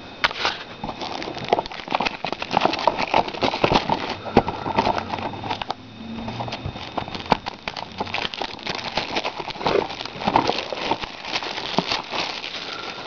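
Plastic packaging crinkling and crackling with many irregular small clicks as it is handled and peeled off a Blu-ray case.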